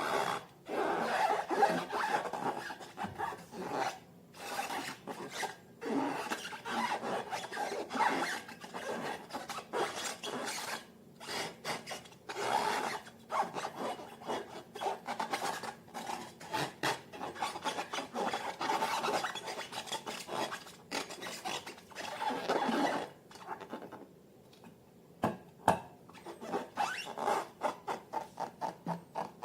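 Hands working slime and long balloons: irregular rubbing and squishing strokes, then a run of short, regular strokes near the end, about two or three a second.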